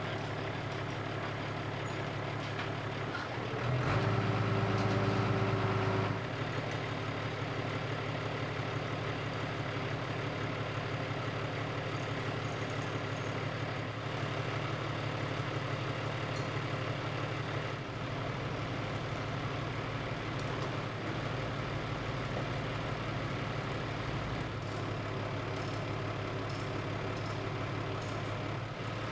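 Heavy diesel engine of construction machinery idling steadily, revving up briefly for about two seconds around four seconds in.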